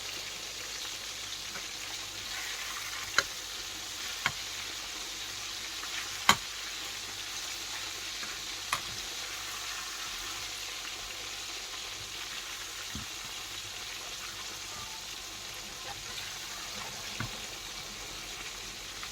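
Flour-coated chicken legs deep-frying in hot sunflower oil, a steady sizzle. A few sharp clicks stand out, the loudest about six seconds in.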